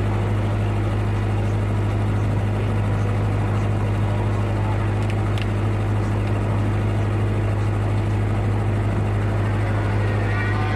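A steady low mechanical hum that stays the same in pitch and level throughout.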